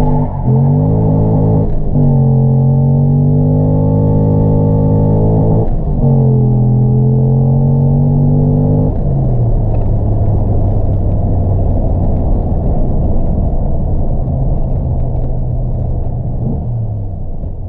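Chevrolet LS6 5.7-litre V8 in a DeLorean DMC-12 accelerating hard through a manual gearbox, heard from inside the cabin. The engine note climbs with the revs and drops at gear changes about two and six seconds in. About nine seconds in it gives way to a steadier, rougher drone.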